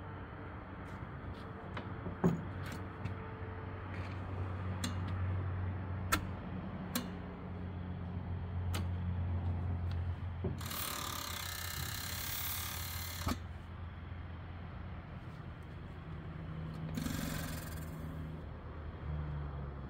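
12 hp Witte headless hit-and-miss engine being turned over by hand at its flywheels: scattered sharp mechanical clicks over a low hum, with a long hissing rush of air about halfway through and a shorter one near the end.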